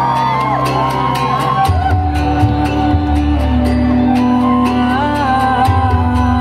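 Live band playing amplified music over a PA, recorded from the audience: a bending melody line over a steady bass and a regular drum beat.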